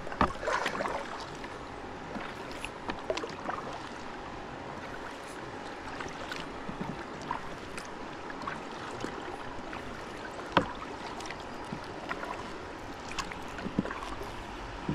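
Steady rush of river water around a kayak, with a few sharp knocks, the clearest just after the start and about ten and a half seconds in.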